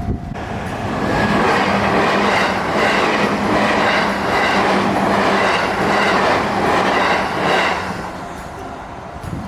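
Train running past close by, its wheels clattering over the rail joints in a regular rhythm over a steady low hum. The sound builds about a second in and dies away near the end.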